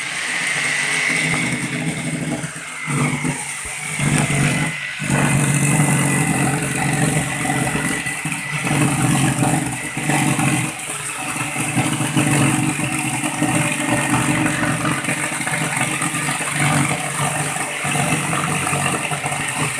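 Electric jigsaw cutting through an MDF sheet: the motor starts suddenly and the blade saws steadily, dipping briefly a few times in the first five seconds.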